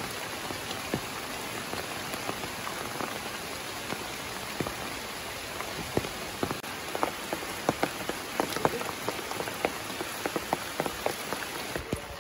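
Heavy rain falling, a steady hiss with many sharp drops striking close by. The close drop hits grow thicker from about seven seconds in.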